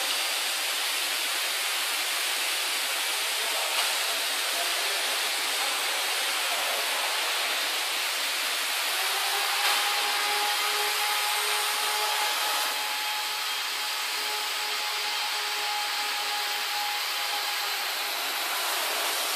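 Steady hiss of machinery noise in a factory hall. A faint steady hum joins it about nine seconds in and stops near the end.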